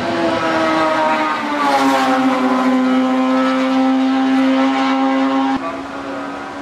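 Racing car's engine at high revs passing close by, its note dropping in pitch as it goes past and then holding steady. Near the end the sound cuts off suddenly to a quieter engine note.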